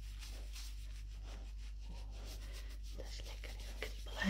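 A cotton pad rubbing over a dog's ear in quick repeated wiping strokes, a soft rustling scrub. A brief louder sound comes at the very end.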